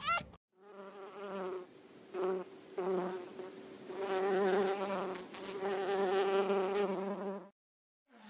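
A flying insect buzzing, a low wavering hum that comes in short stretches at first, then runs on steadily for several seconds before cutting off suddenly.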